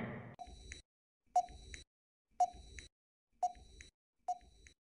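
Quiz countdown timer sound effect: five short electronic beeps, about one a second.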